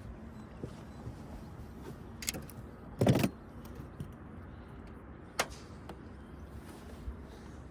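A few knocks and clicks from handling gear on a boat, with one louder thump about three seconds in, over a faint steady low hum.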